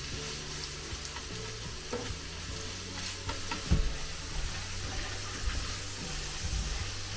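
Chicken hearts and onions sizzling as they fry in a pan, stirred with a utensil that clicks against the pan now and then; one louder knock about halfway through.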